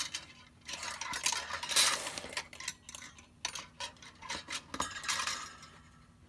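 Metal binding wire rattling and clinking against the hooks of a wire-binding machine as it is handled, with some rustling of paper; irregular, busiest in the first half and dying away near the end.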